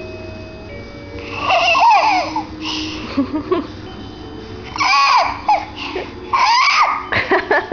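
A baby making high-pitched squealing and babbling noises to herself in three bouts, her voice sliding up and down in pitch, over faint steady tones.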